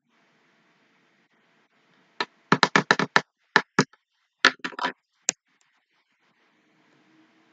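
A quick, irregular run of about a dozen sharp clicks and knocks close to the microphone, starting about two seconds in and stopping a little after five seconds.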